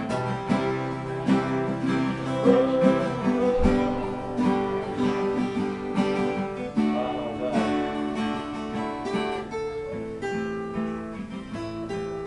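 Acoustic guitar strummed in an instrumental passage between sung lines of a sertanejo song.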